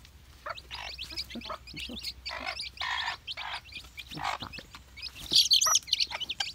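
A brood of young chicks peeping, many short, high cheeps overlapping, with the loudest and shrillest cheeps about five and a half seconds in.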